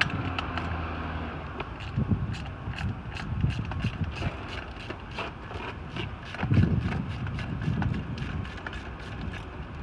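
Ratchet wrench with a 13 mm socket clicking in short runs as a bicycle seat-post clamp bolt is worked, with a few low bumps of the tool and bike being handled.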